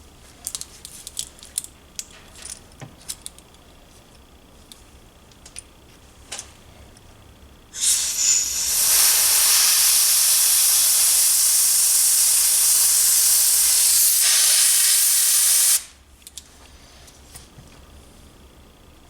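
A few small clicks of the carburettor being handled, then about eight seconds of steady hissing air as breath is blown into the Gurtner carburettor's fuel inlet, cutting off suddenly. The air leaks past the float needle valve: the needle is not sealing.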